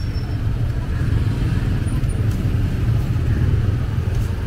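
Steady low rumble of street traffic and engines, with a couple of faint clicks about two seconds in and near the end.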